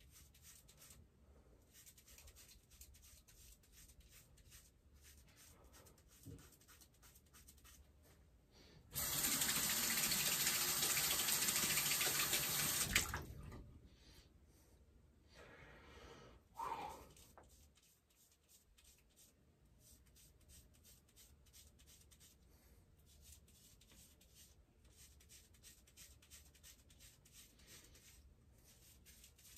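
A bathroom tap runs into the sink for about four seconds near the middle, and a short sound follows a few seconds later. Faint, intermittent razor strokes scrape over beard stubble the rest of the time.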